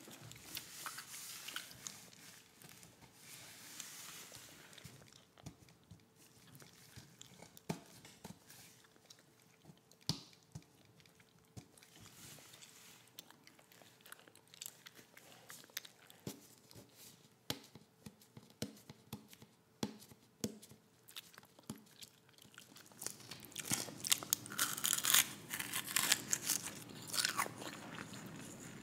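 Close-miked eating: a person chewing and biting food, with scattered wet mouth clicks and crunches. The chewing becomes louder and busier about three-quarters of the way through.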